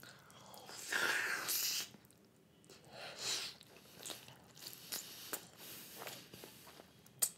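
A person chewing soft cheese-topped momos close to the microphone: quiet wet mouth clicks and smacks, with a short breathy burst of air through the nose about a second in.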